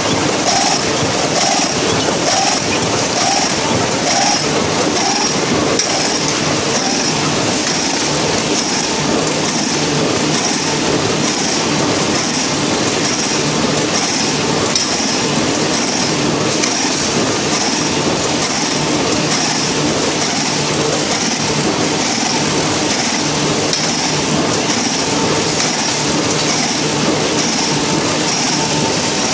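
Curioni 2800NT inline machine running at production speed, its servo-driven sewing section cycling in a fast, even rhythm over a continuous loud mechanical clatter.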